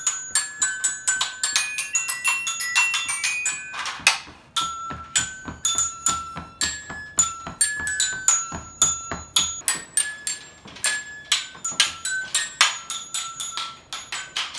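Children's toy xylophone struck fast with mallets in a loose, frantic jam, several high ringing notes a second, with a brief break about four seconds in. The bars are mostly, but not perfectly, in tune.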